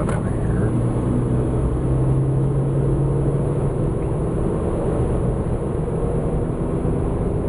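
A car's engine and tyres drone steadily on the road, heard from inside the moving car's cabin.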